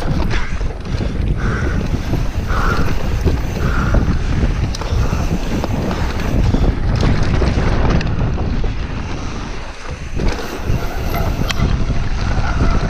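Wind rushing over a chest-mounted camera's microphone at downhill mountain-bike speed. Under it, knobby tyres rumble over a dry dirt track and the bike rattles with many short clicks over the bumps.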